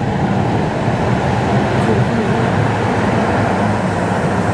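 Duewag light-rail train running into an underground station, a steady loud rumble of wheels on rails and running gear.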